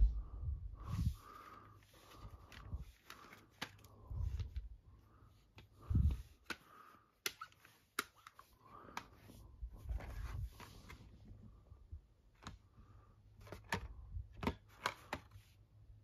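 Handling noise: a plastic CD jewel case being turned over and set down on a fabric bedspread, giving scattered sharp clicks and taps, soft rustling and a few dull thumps.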